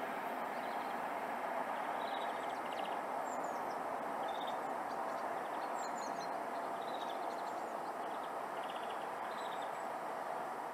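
Small birds chirping in short repeated trills and quick falling whistles, over a steady rushing noise that fades slightly toward the end.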